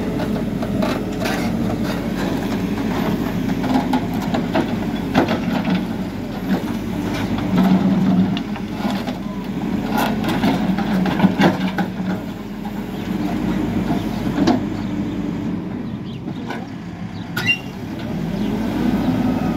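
Hidromek 102S backhoe loader's diesel engine running while the backhoe arm digs, its note swelling louder at times as the hydraulics take load. Sharp knocks and clanks come now and then from the bucket and arm working in the soil.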